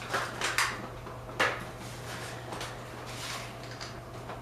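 Hard parts clicking and knocking as they are handled: three sharp knocks in the first second and a half, then a few fainter ticks, over a steady low hum.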